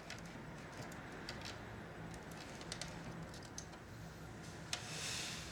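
Faint scattered clicks and taps of small parts being handled while a VCR is taken apart, with a short rustle about five seconds in. A low steady hum runs underneath.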